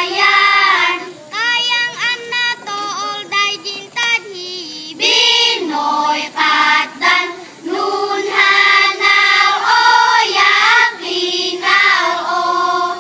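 Group of young girls chanting the Ifugao hudhud, a sung narrative chant, together in sustained phrases with short breaks between them.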